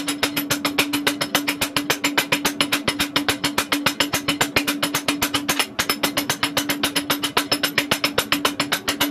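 Two hand hammers striking the top die of a blacksmith's guillotine rounding tool in very fast, even succession, about eight blows a second, over a steady ringing tone. The hot square steel bar between the dies is being rounded, with a helper acting as striker.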